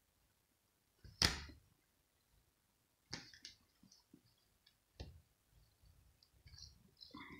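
Soft scattered rustles and clicks of fabric being brushed and handled as a cat shifts in a plush cat bed and paws at a person's sleeve. The sharpest and loudest click comes about a second in, with smaller ticks and scuffs a few seconds later.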